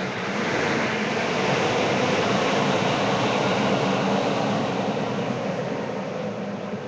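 Steady road and engine noise of highway traffic heard from inside a moving car, swelling slightly about a second in and easing off toward the end.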